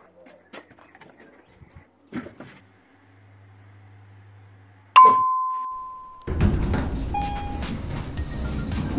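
A low steady hum, then a single bright elevator chime that rings out and fades over about a second. About a second after the chime, loud music starts.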